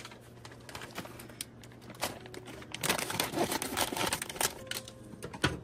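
Plastic bag of vegetables crinkling as it is handled and emptied into the soup pot, with irregular rustles and clicks that are busiest about three seconds in.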